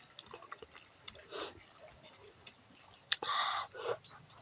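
Close-up eating sounds: wet chewing of rice mixed with nettle (sisnu) soup, with small moist clicks and a louder, longer burst about three seconds in.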